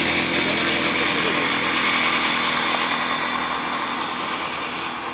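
Can-Am ATV engine running hard, steady at first and then fading over the last couple of seconds as the quad moves away.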